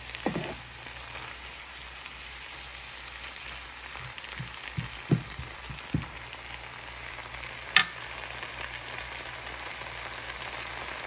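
Sweet potato leaves sizzling steadily as they stir-fry in a frying pan. A wooden spatula knocks against the pan several times in the first half, and there is one sharp click just before eight seconds in.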